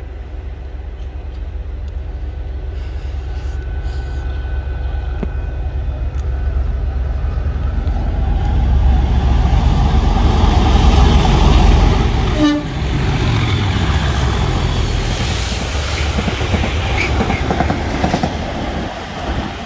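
Class 37 diesel-electric locomotive's English Electric V12 engine working under power, a deep rumble growing steadily louder as it approaches and then passes close by. There is a short break about twelve seconds in.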